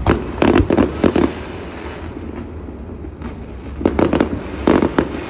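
Aerial fireworks shells bursting in quick volleys of sharp bangs: one cluster in the first second or so, a quieter gap, then another cluster near the end, over a low steady rumble.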